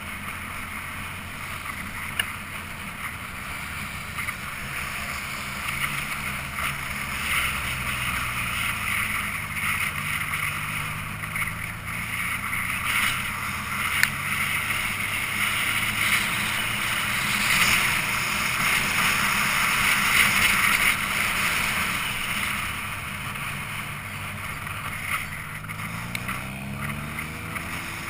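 Wind rushing over the microphone of a camera on a moving motorcycle, loudest in the middle, with the bike's engine droning underneath and its note rising and falling with the throttle, climbing near the end.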